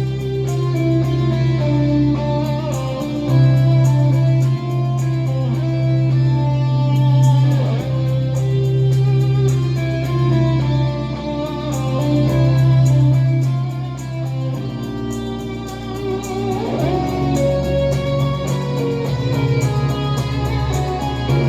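Instrumental music with guitar over a sustained low bass note, played back through Klipsch R-51M bookshelf speakers.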